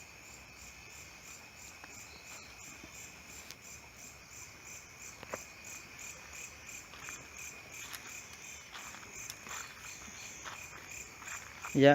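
Night crickets chirping steadily: a continuous high trill with a faster pulsing layer above it. A few faint ticks sound in the second half.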